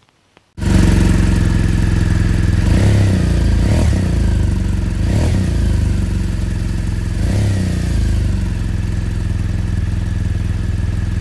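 Motorcycle engine running steadily at idle, cutting in suddenly about half a second in, with a few brief swells as if the throttle is blipped.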